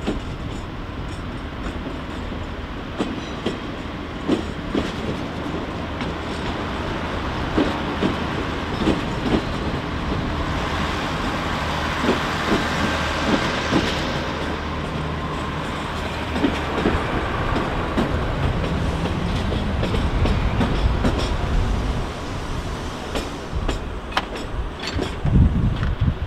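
CP diesel multiple unit moving slowly through the station, its engine droning steadily while the wheels click over rail joints and pointwork. It is loudest as it passes closest, a little under halfway through. Low buffeting, like wind on the microphone, comes near the end.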